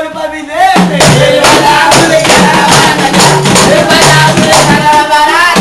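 Live amateur band music: voices singing over a tambourine and other hand percussion keeping a steady beat.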